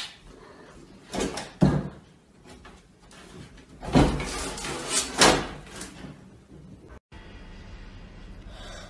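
A few sharp knocks and bangs, loudest about four and five seconds in, then a cut to a quieter steady background about seven seconds in.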